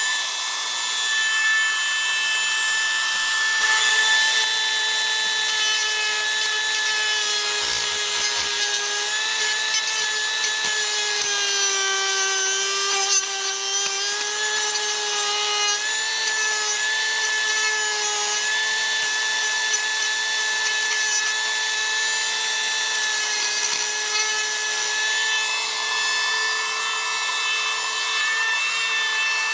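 Dremel rotary tool with a sanding disc running at high speed and grinding into 3D-printed plastic, a steady high whine with a rasping edge. Its pitch sags for a few seconds around the middle as the disc bears down harder, then recovers.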